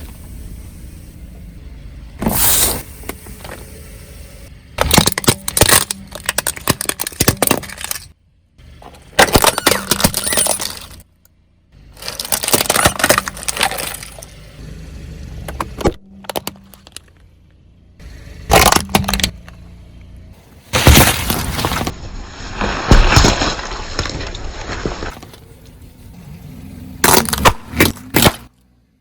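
A car's tyre rolling over and crushing objects, heard as a string of short, loud bursts of cracking and breaking. A car engine runs low between the bursts. The sound cuts off abruptly several times as one crush gives way to the next.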